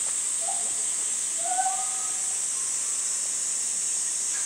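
Steady high-pitched drone of a cicada chorus in summer heat. A few faint short calls come through about half a second in and again around a second and a half in.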